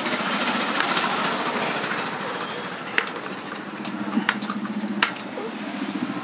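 Steady machine noise in the workshop, with a low pulsing hum coming in past the middle. Two sharp metal clicks, about three and five seconds in, come as the Super Splendor engine's clutch assembly is seated on its shaft.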